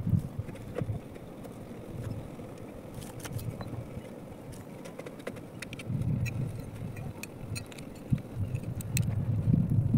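Wood fire burning in a tin-can stove, with scattered sharp crackles and pops over a low rumble that swells twice, about six seconds in and near the end.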